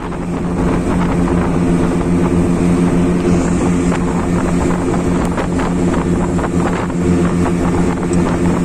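Motorboat engine running steadily at cruising speed, a constant drone with water and wind hiss over it.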